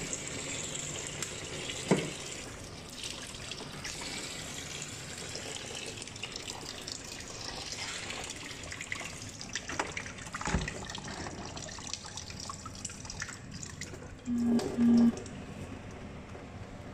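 Kitchen tap running into a plastic basin of live crabs, splashing steadily as hands scrub the crabs under the stream, with a few sharp knocks. About two-thirds through come two short low beeps, louder than the water.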